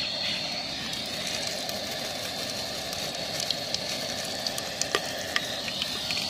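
Whole spices (cumin, cinnamon, cardamom and black peppercorns) sizzling steadily in hot mustard oil in a pressure cooker, with scattered sharp pops and crackles that come more often in the second half.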